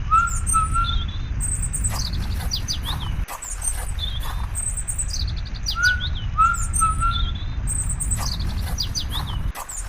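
Birds chirping, with high chirps, a run of falling notes and short whistles, over a steady low rumble; the same set of calls repeats about every five and a half seconds, like a looped nature recording.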